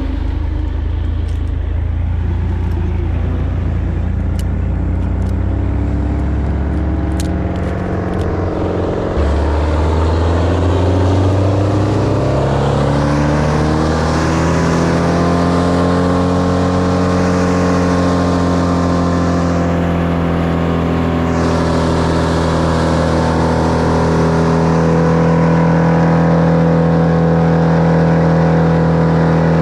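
An engine running, its pitch rising about halfway through and then holding steady.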